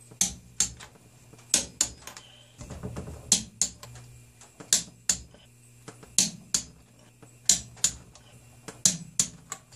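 A hand wrench ratcheting in short strokes, sharp clicks coming in pairs about every second and a half, as the exhaust manifold nuts are run down on the cylinder head.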